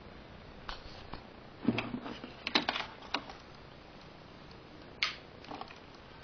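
Handling noise: scattered light clicks and knocks, a few taps in a cluster about two and a half seconds in and a sharper click about five seconds in.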